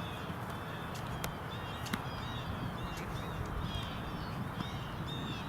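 Small birds chirping again and again over a steady low outdoor rumble, with two sharp clicks in the first two seconds.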